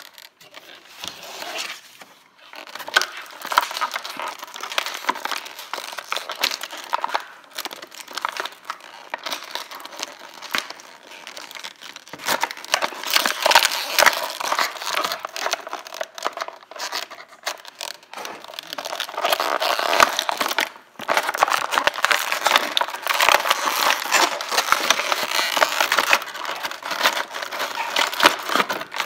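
Clear plastic blister packaging crinkling and crackling as it is handled and flexed to free a doll from its tray, a dense run of small crackles that gets busier in the last third.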